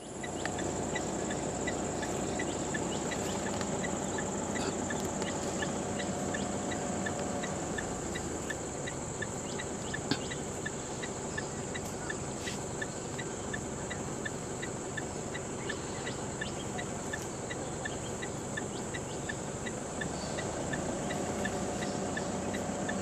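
Steady outdoor insect drone, a constant high-pitched whine, with a regular ticking chirp about twice a second over a low background hum.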